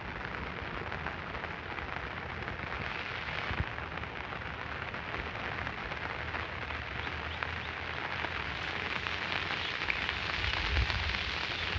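Steady rain falling, an even hiss of fine drops.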